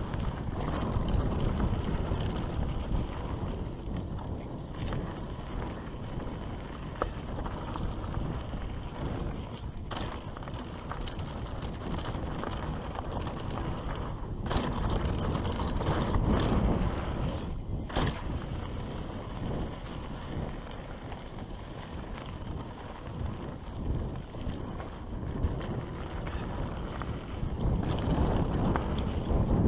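Mountain bike riding fast down a rough dirt trail: tyres rolling over loose dirt and rock with wind buffeting the microphone, and a few sharp knocks and rattles from the bike over bumps.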